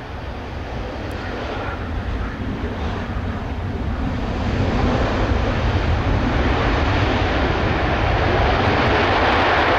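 Boeing 787-9's GEnx-1B jet engines on the landing rollout just after touchdown. A rushing roar grows steadily louder over the first five seconds, then holds steady.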